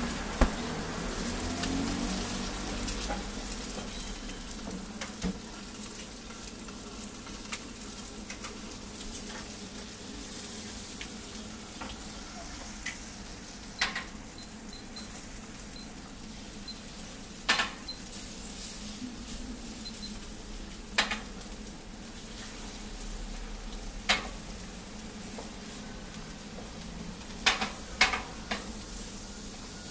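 Egg-crepe batter and raw eggs sizzling steadily on a hot flat-top griddle while a metal scraper spreads them, with sharp taps at irregular intervals, several in quick succession near the end.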